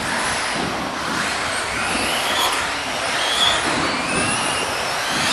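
Several electric 2WD RC off-road buggies racing on an indoor track: the whine of their motors rises and falls in pitch with the throttle over a steady rush of tyre and hall noise.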